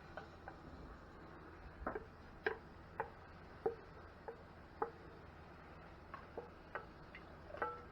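Irregular light ticks, one or two a second, some with a brief ringing note, over a faint steady hum.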